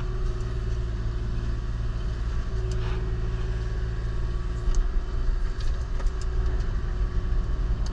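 Kubota KX040-4 compact excavator's diesel engine running steadily with its hydraulic Indeco forestry mulcher attachment, a continuous low hum with a higher whine that drops out and returns.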